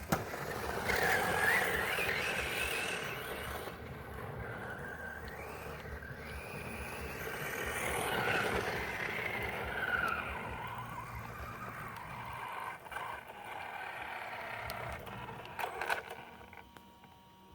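Brushless electric motor of a Losi 10SCTE short-course RC truck whining, its pitch rising and falling with the throttle, over the noise of the tyres on dirt. The sound fades away near the end.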